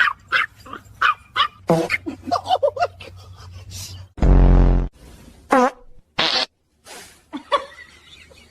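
Small dogs yapping and squealing in short high bursts, with one loud, low buzzing sound lasting under a second about four seconds in and a whine shortly after it.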